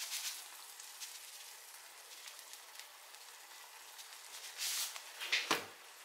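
Beaten egg and shrimp sizzling faintly in a nonstick frying pan, a soft steady hiss with fine crackling that thins out within the first second. Two short rustling noises near the end.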